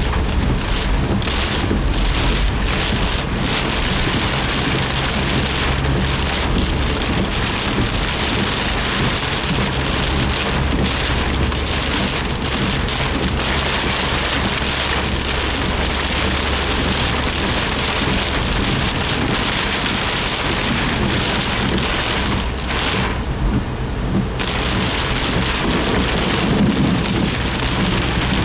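Heavy downpour drumming on a Suzuki Jimny's roof and windscreen, heard from inside the cabin as a dense, steady patter, with the low hum of the engine and road running underneath.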